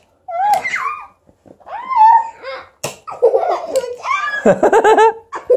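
Children laughing and squealing, with one sharp click about three seconds in.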